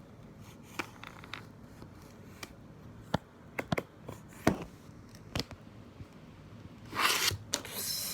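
Scattered small clicks and taps, then a short rustling scrape near the end: slime and its plastic containers being handled and set down.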